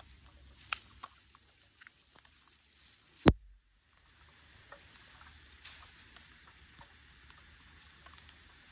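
Small wood fire crackling, with scattered irregular pops and ticks over a faint steady background. One loud sharp click comes about three seconds in, followed by half a second of dead silence where the audio cuts out.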